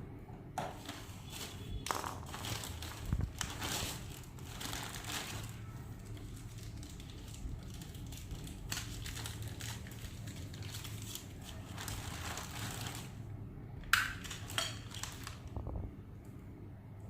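Packaging being handled: irregular crinkling, crumpling and scraping, with a few clicks and one sharper knock about fourteen seconds in.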